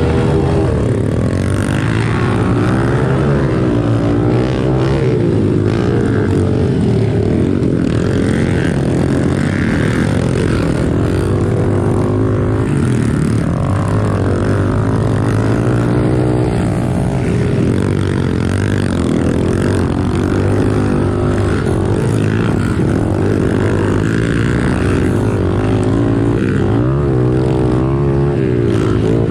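Pit bike engines revving during a race. The pitch rises and falls again and again as the throttle opens and closes and the gears change.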